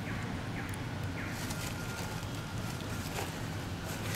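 Steady low wind rumble on the microphone outdoors, with a few faint short high chirps in the first second or so.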